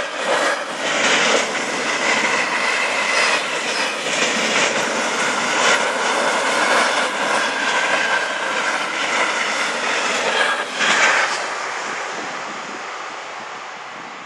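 Freight train of container and tank-container wagons rolling past close by: a steady rumble of wheels on rails with irregular knocks. It fades away from about eleven seconds in as the last wagons pull off into the distance.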